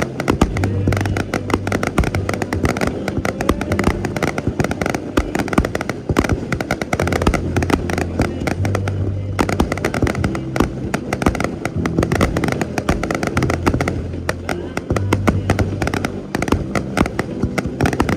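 Fireworks going off in a dense, rapid run of sharp cracks and bangs, with people's voices mixed in.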